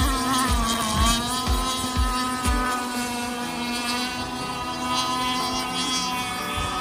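Radio-controlled mono-hull racing boats running at speed, a steady, layered motor drone that rises and falls slightly in pitch early on.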